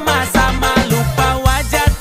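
Upbeat dance music with a steady beat, heavy bass and a sung melody.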